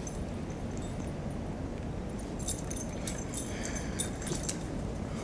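Steady outdoor background noise, with light metallic jingling from about two and a half to four and a half seconds in.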